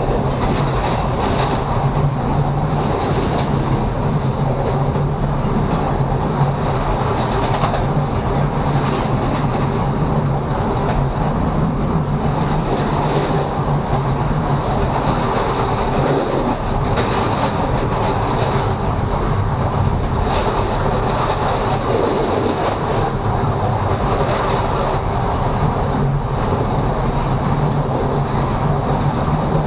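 Diesel railcar running along the line: a steady low engine hum under the clatter of the wheels over rail joints, which comes back every second or two, with a thin steady whine on top.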